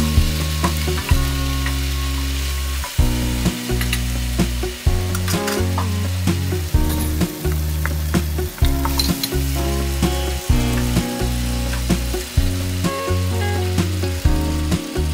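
Diced potatoes sizzling as they fry in oil in a pan and are stirred with a wooden spoon, with a few sharp clicks. Background music of held notes changing about every second plays over it.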